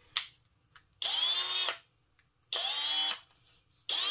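Cordless drill fitted with a countersink bit, triggered in three short bursts; each burst is a motor whine that rises as it spins up and then holds steady. A sharp click comes just before the first burst.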